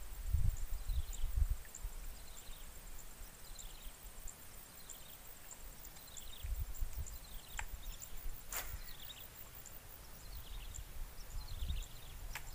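A bird calling over and over, short falling chirps about once a second. Wind gusts rumble low on the microphone, loudest at the start. A faint fast ticking runs high above, and two sharp clicks come just past the middle.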